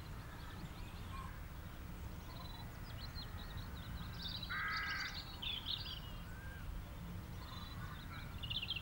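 Background birdsong: many short high chirps and tweets, with one louder, harsher call about four and a half seconds in, over a faint low rumble.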